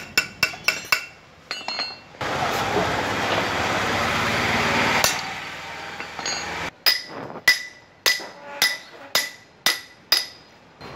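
Metal tools knocking on the exposed clutch side of a motorcycle engine. A few quick clinks come first, then a few seconds of steady hiss-like noise, then about eight evenly spaced, ringing metallic strikes, roughly two a second, like a hammer tapping a socket spanner.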